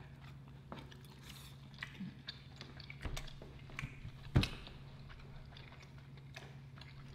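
Two people eating with metal forks: quiet chewing and mouth sounds of grilled suya meat and onions, with scattered sharp clicks of forks against the food trays, the loudest about four and a half seconds in.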